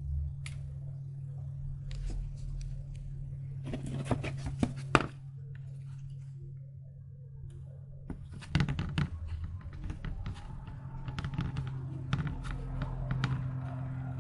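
Handling noise of a flexible plastic mask: scattered taps, knocks and rubbing as it is picked up, turned and pressed by hand, over a steady low hum. A cluster of knocks comes about four seconds in, and the handling grows busier from the middle on.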